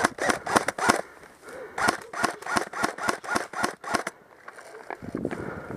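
Airsoft rifle firing rapid single shots, about five or six a second, in two strings; the second string stops about four seconds in.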